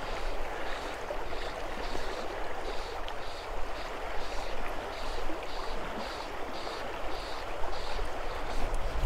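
Shallow river current flowing steadily past a wading angler: a steady rushing of moving water.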